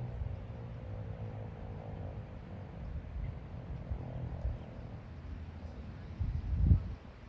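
Federal Signal 2001-130 rotating siren winding down at the end of its fast-wail test, its falling tone fading away over the first second or two. Then a low rumble of wind on the microphone, with a loud low buffet about six and a half seconds in.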